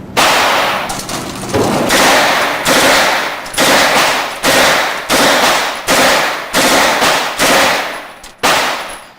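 9mm gunfire: about a dozen single shots fired at an uneven pace, roughly half a second to a second apart, each followed by a short echoing tail, with the last shot near the end.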